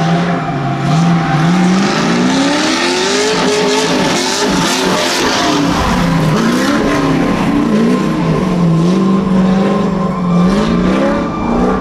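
Drift car at full slide: the engine revs climb and fall again and again while the tyres squeal and scrub.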